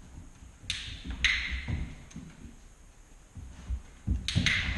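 A few sharp taps with a short room echo, two about a second in and two near the end, over low thuds, as a dog plays on a wooden parquet floor.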